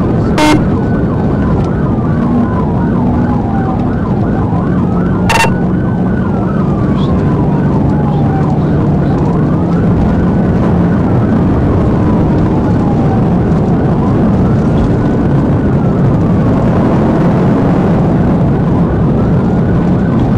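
Police cruiser siren on wail, sweeping slowly up and down about once every four to five seconds, with a quicker warble in the first few seconds. Heavy road and engine noise from the speeding patrol car runs underneath. Two sharp clicks come at about half a second and five seconds in.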